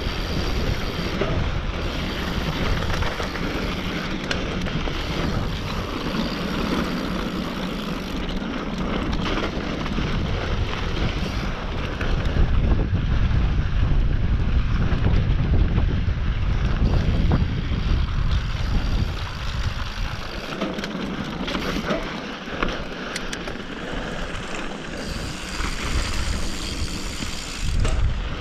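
Wind buffeting a GoPro's microphone while riding a mountain bike downhill, over a steady rush of tyres on a dirt trail with scattered small knocks. The low wind rumble is heaviest about halfway through.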